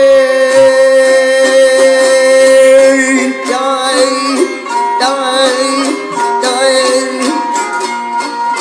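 A man sings a Turkmen folk song, accompanied by a plucked dutar and a bowed gyjak spike fiddle. A long held note gives way, about three seconds in, to shorter, wavering melodic phrases.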